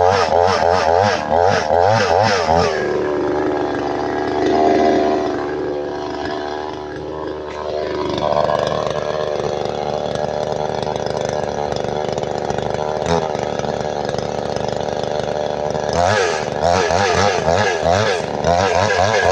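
Chainsaw running at high revs and cutting wood, its pitch wobbling under load. About three seconds in it eases off to a lower, steadier speed, then it picks up and cuts again near the end.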